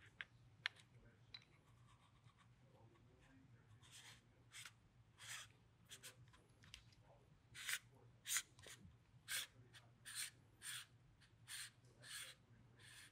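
Faint rub of metal on metal as an FX Maverick air rifle's power plenum is twisted by hand into the action. A couple of light clicks come first, then a run of short scraping strokes about one a second.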